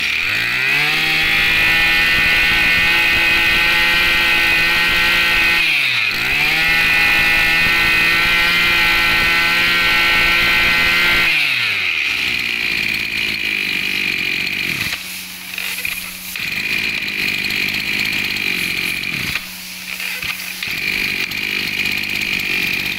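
Maru 26 two-stroke brush cutter engine revved up to high speed and held there, dipping briefly about six seconds in and revving up again. About eleven seconds in it falls back to a steady idle with a few small dips.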